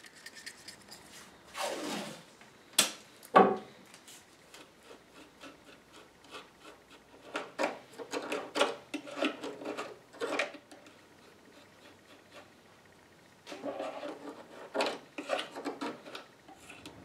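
A stick scraping and rubbing in bursts of quick short strokes, mixing thickened epoxy in a paper cup and working it into a crack in the wood. There are a few louder swishes early on, then two longer runs of rapid strokes.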